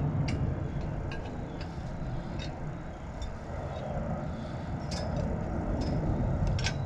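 Scattered light metal clicks and taps as a caliper bolt, nut and 9/16 wrench are handled at a disc brake caliper bracket, over a steady low background rumble.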